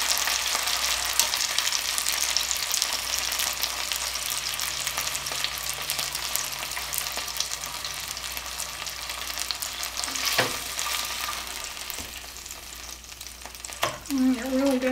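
Chicken breasts sizzling and crackling in hot oil in a skillet, with two light knocks of the tongs against the pan about two-thirds of the way through and near the end. The sizzle eases off toward the end as the pieces are lifted out.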